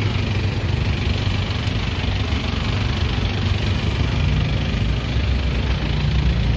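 Road traffic: car and motorbike engines running and idling close by, a steady low rumble.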